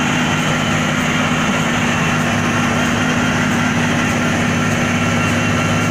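DAF XF truck's diesel engine running steadily under heavy load as it pulls a loaded semi-trailer through loose dirt, its drive wheels throwing up soil. A steady low drone with no change in pitch.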